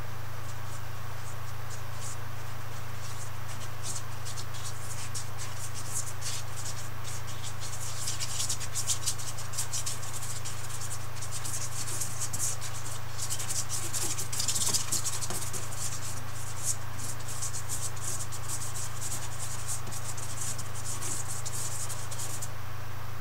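Paintbrush scratching and dabbing on canvas in many quick strokes, thickest in the middle and stopping shortly before the end, over a steady low hum.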